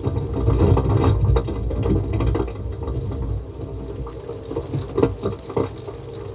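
Low mechanical rumble with irregular knocks and clicks over it, which the uploader takes for a compressor running underground to pump out water.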